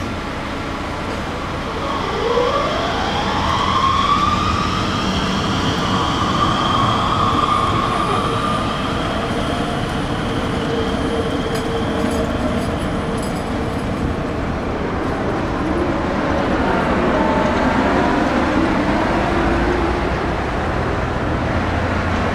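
Articulated low-floor tram rolling over curved track, its steel wheels squealing against the rails. The squeal starts about two seconds in with a sharp rise in pitch and slides for several seconds, then comes again more faintly near the end, over the steady rumble of the tram and traffic.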